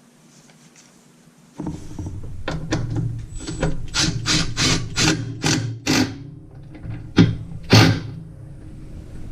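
Impact wrench running and hammering in short pulses as it tightens the agitator bolt of a top-load washer: the tool starts about a second and a half in, gives a run of sharp bursts about three a second, then two louder bangs near the end.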